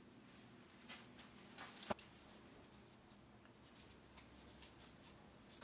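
Near silence broken by a few faint clicks and light knocks, the sharpest about two seconds in: a roll of dough being handled and set down on a parchment-lined metal baking tray.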